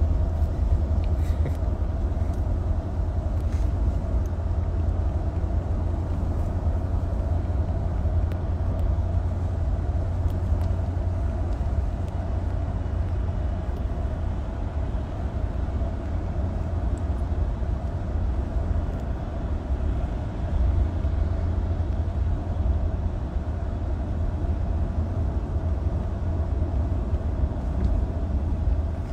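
Steady low rumble of road and engine noise inside the cabin of a moving van.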